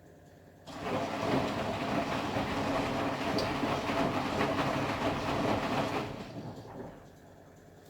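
Candy Formula Inox P 7.71X washing machine turning its drum in a wash tumble, with the motor humming and the load rumbling inside. It starts abruptly about a second in and winds down near the end.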